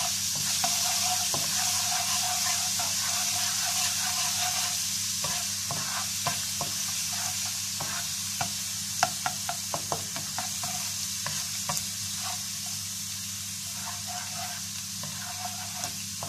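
Garlic paste sizzling in hot oil in a frying pan while a slotted spatula stirs it, with a run of sharp taps and scrapes of the spatula against the pan in the middle. The sizzle eases off slightly toward the end.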